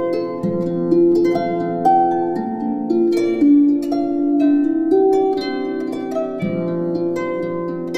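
Instrumental music: a plucked string instrument playing a slow melody over low bass notes.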